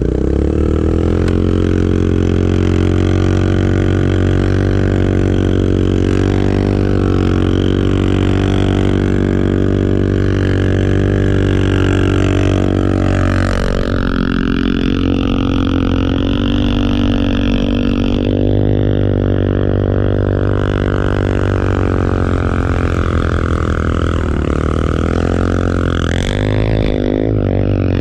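ATV engine held at high, steady revs, its pitch dipping and rising twice as the throttle changes.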